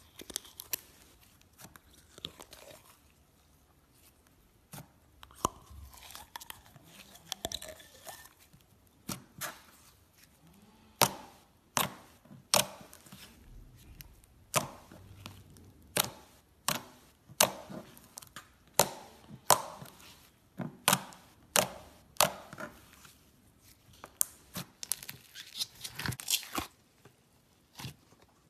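Fingers pressing and squishing slime, making sharp wet pops and clicks as trapped air bursts. The sound is soft and crackly at first, then about halfway through it turns to loud pops coming more than once a second.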